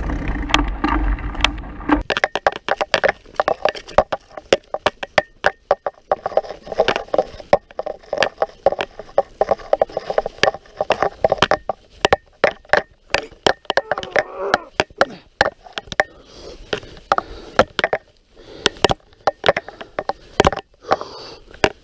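Mountain bike rattling and clattering over a rough, root- and leaf-strewn trail, with many quick irregular knocks and jolts from the frame and handlebar mount. A steady low rumble fills the first two seconds, then stops abruptly.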